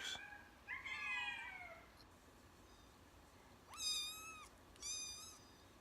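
Domestic cats meowing: three meows, the first drawn out and falling in pitch, then two shorter, higher meows near the end.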